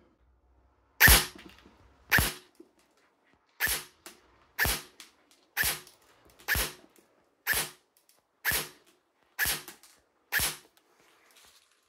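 Delta Armory Bravo ETU Silent Ops M4 airsoft electric gun firing ten single semi-automatic shots, about one a second, into a chronograph to measure muzzle velocity.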